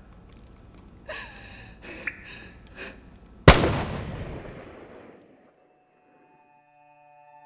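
A single loud blast about three and a half seconds in, dying away over a second and a half, after a few short pitched sounds. Soft sustained music tones come in near the end.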